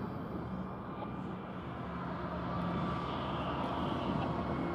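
Union Pacific diesel-electric locomotives running as they lead a train of tank cars, a steady engine drone that grows louder about three seconds in.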